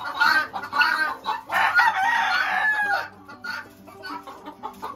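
A rooster crowing once: one long call about a second and a half in, falling slightly in pitch at the end. Short repeated clucking calls from other fowl come just before it.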